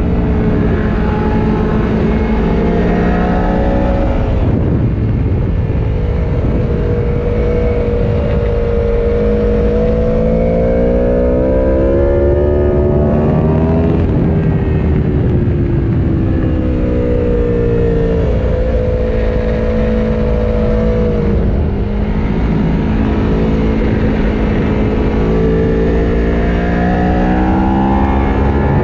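Aprilia Tuono V4 Factory's V4 engine heard onboard at track pace: the revs climb hard, drop sharply under braking about four, fourteen and twenty-one seconds in, then climb again through the gears.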